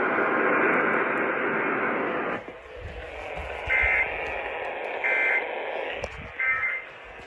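Off-air radio static hiss that cuts off sharply about two and a half seconds in. It is followed by three short bursts of Emergency Alert System digital data tones, each about a third of a second and a little over a second apart, the pattern of an EAS end-of-message code.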